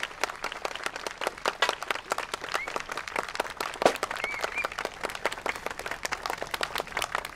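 Audience applauding with dense, steady clapping, just after a brass band's final chord.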